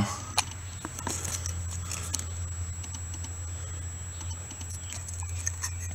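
Quiet background: a steady low hum with a few faint clicks.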